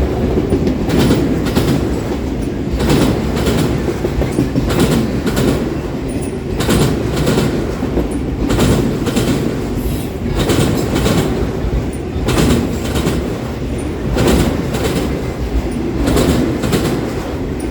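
Canadian Pacific train's cars rolling past, the wheels clicking over rail joints in repeated groups every second or two, over a steady low rumble.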